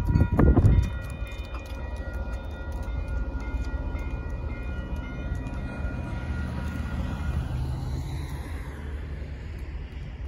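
Railroad grade-crossing bell ringing with rapid repeated strokes, fading out about four or five seconds in as the crossing gate rises. A car then passes over the crossing with a swish of tyre noise, over a low steady rumble. Loud rumbling bumps on the microphone come in the first second.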